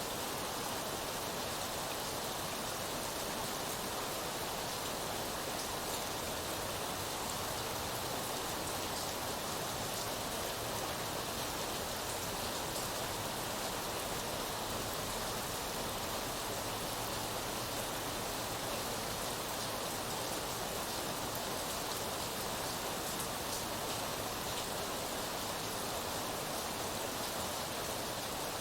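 Steady rainfall, an even hiss of drops with fine patter on a surface, unchanging throughout.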